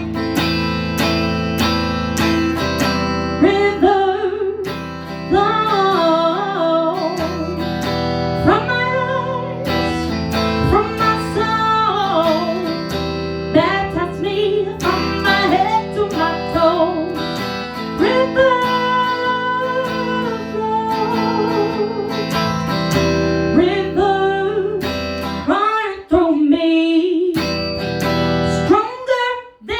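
Acoustic guitar strummed under a woman singing a melody, with no words that can be made out.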